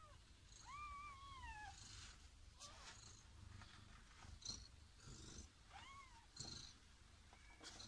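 Newborn kittens mewing: two thin, high cries that rise and then fall, about a second in and again near six seconds, with faint scuffling as they nurse.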